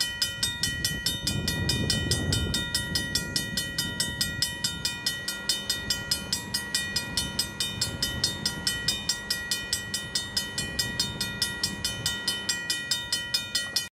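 Railroad crossing warning bell ringing steadily, sharp even strikes about three a second with a sustained ringing tone; the crossing signal is active. A low rumble sits underneath for the first few seconds.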